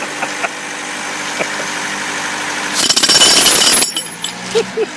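Pneumatic jackhammer breaking up concrete, with one loud burst of hammering about three seconds in that lasts about a second. Between bursts a steady engine hum runs underneath, from the air compressor that drives the hammer.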